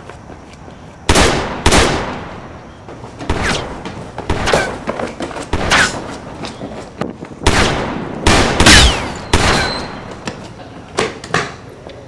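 Gunshot sound effects: a dozen or so single shots at irregular intervals, each a sharp crack with a short echoing tail.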